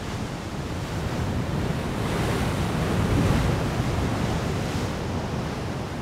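Sea surf washing below, with wind buffeting the microphone; it swells louder around the middle and eases off again.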